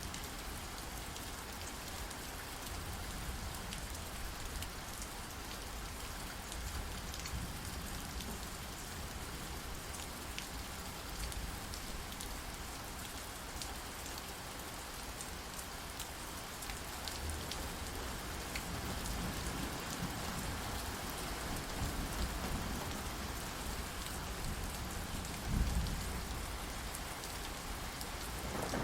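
Steady rain falling, with scattered drop ticks. Low rumbles swell up in the second half, the strongest about 25 seconds in.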